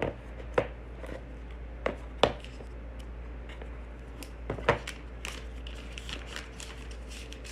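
Handling sounds of a smartphone in its plastic protective film being turned over by hand above its cardboard box: a few sharp taps and clicks, the loudest about two and a quarter seconds and nearly five seconds in, with smaller ticks between.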